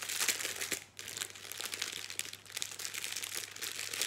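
Small plastic zip bags of diamond painting drills crinkling as they are handled, with a short lull about a second in.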